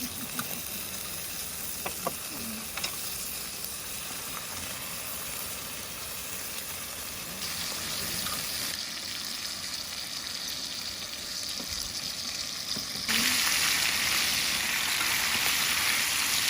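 Pork belly and kimchi sizzling on a cast-iron cauldron-lid griddle, a steady frying hiss with a few light utensil clicks near the start. The sizzle grows louder about halfway through and jumps louder again near the end.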